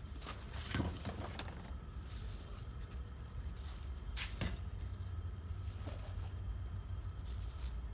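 Small metal parts clinking and rattling as they are handled and moved aside during a search for a part, with a few sharp clinks.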